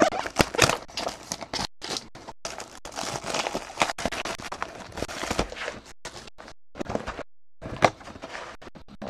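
Plastic shrink wrap on a sealed trading-card box crinkling and tearing as the box is handled and unwrapped, with irregular crackles and cardboard scrapes, and a few brief moments where the audio drops out.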